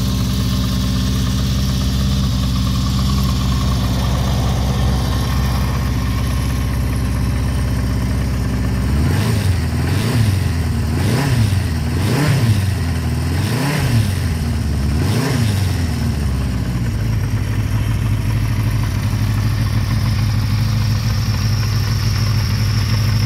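Honda CB400 Four's air-cooled inline-four engine idling steadily, then revved five times in short throttle blips, each rising and falling back in pitch, before settling back to idle.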